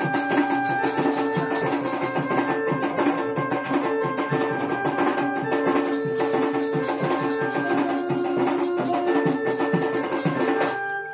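Live Sambalpuri folk music: an electronic keyboard plays a held melody over fast, dense drumming on a tall barrel drum and smaller hand drums. The music stops abruptly near the end.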